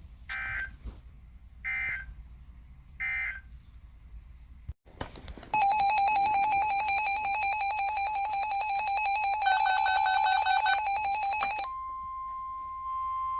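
Emergency Alert System tones. Three short data bursts (the end-of-message signal) come first, then a loud, rapidly pulsing, buzzy electronic alert tone for about six seconds, and then a steady single-pitched tone like the NOAA Weather Radio 1050 Hz alert tone, announcing the next warning.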